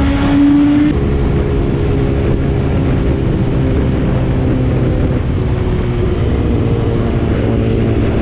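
BMW S1000RR's inline-four engine under hard acceleration at speed. Its rising note breaks about a second in with an upshift, then holds a steady pitch under a dense low rumble.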